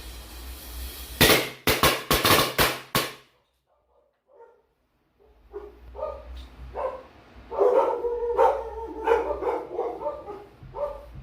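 A string of firecrackers going off: a rapid run of about seven sharp bangs within two seconds. A few seconds later a dog barks repeatedly.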